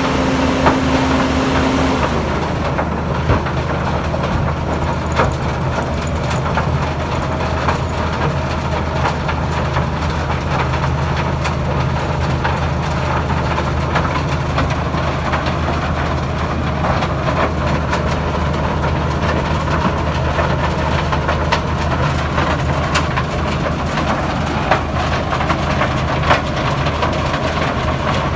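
Heavy diesel road-construction machinery running steadily, with scattered crunching, clicking and knocking over the engine. A steady alarm tone, like a reversing beeper, cuts off about two seconds in.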